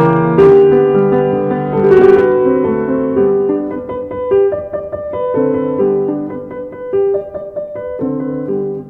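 Background piano music: a slow melody over held chords, growing gradually softer toward the end.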